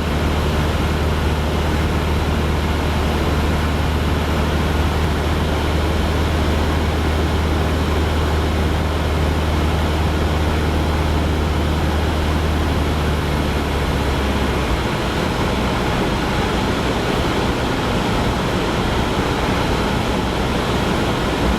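Cessna 172 Skyhawk's four-cylinder piston engine and propeller running steadily, heard inside the cabin as a low drone under an even rush of wind. The engine's low note drops off about fifteen seconds in.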